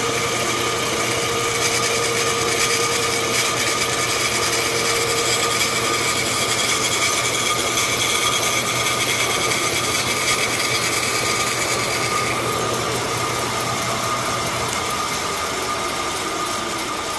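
Vertical bandsaw running with a steady whine as its blade shaves the edge of a particleboard panel that rides against the back of the blade. One of its tones drops out about two-thirds of the way through.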